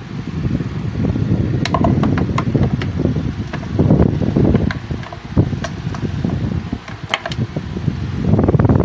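Uneven rumbling noise on a handheld phone's microphone, rising and falling in loudness, with a few sharp light clicks scattered through it.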